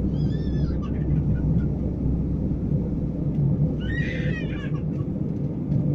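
Airbus A319 cabin noise in the climb: a steady low rumble of engines and airflow heard from inside the cabin. Two brief high voice sounds come through it, near the start and about four seconds in.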